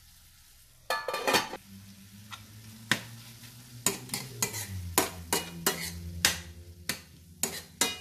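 Metal spoon stirring squid and onions in a stainless steel frying pan: a run of sharp clicks and knocks as the spoon strikes and scrapes the pan, some with a brief metallic ring, starting about a second in, over a low sizzle of the food frying.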